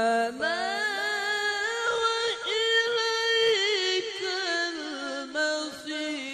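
A male qari reciting the Quran in melodic tilawah style through a microphone: one long melismatic phrase that sweeps up to a high, held, ornamented note about half a second in, then steps down lower near the end.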